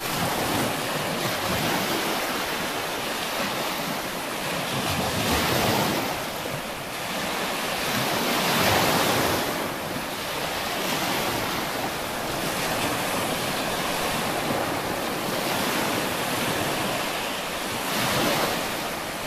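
Small sea waves washing onto the shore, the noise rising and falling every few seconds, with wind buffeting the microphone.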